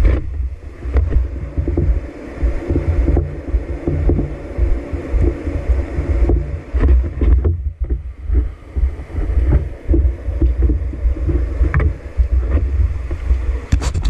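Water sloshing and slapping against a surfboard right under a board-mounted action camera, heard as a loud, churning low rumble with occasional knocks.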